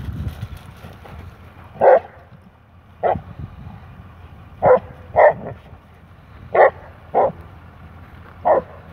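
A dog barking in play during a chase: seven short barks at uneven intervals, some coming in quick pairs.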